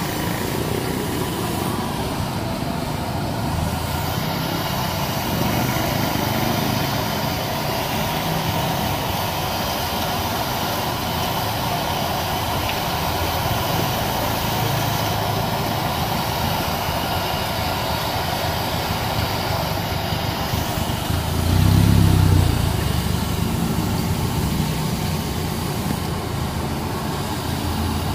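Seafood deep-frying in a large wok of hot oil: a steady sizzle over the low roar of the gas burner beneath. A louder low rumble swells briefly about two-thirds of the way through.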